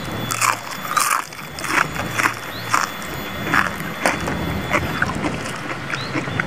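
Crunching of a crisp batter-fried leaf being bitten and chewed close to the microphone, about two crisp crunches a second that thin out after about five seconds.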